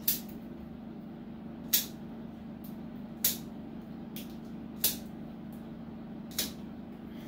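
Plier-style dog nail clippers snipping through a small dog's nails: five sharp clicks about a second and a half apart, with a few fainter clicks between them, over a steady low hum.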